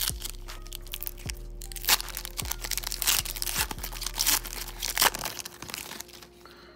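Foil wrapper of a Donruss Elite football card pack being torn open and crinkled by hand, with dense irregular crackling for about five seconds that then dies down as the cards come out.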